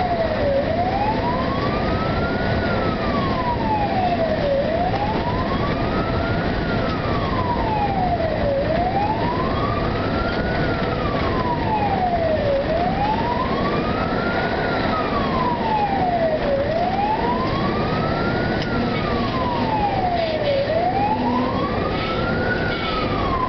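Fire engine's siren in a slow wail, gliding up for about two seconds and down for about two seconds, again and again, over the truck's steady engine and road noise.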